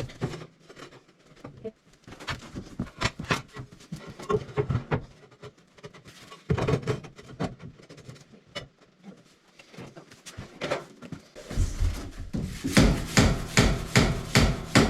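Tiles and boards being handled and shifted into place, with scattered knocks, clatters and rubbing scrapes. Near the end comes a quick run of louder knocks.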